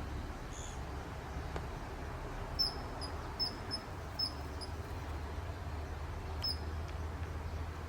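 Common kingfisher calling: short, high, piercing notes, six in quick succession a couple of seconds in and one more later, over a low steady rumble.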